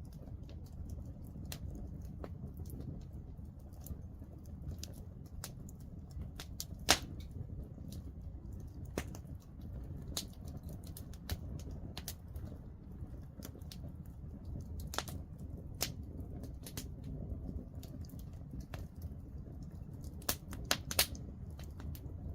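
Wood fire burning in a fireplace: a steady low rumble of flame with irregular sharp crackles and pops, the loudest pop about seven seconds in and a quick run of pops near the end.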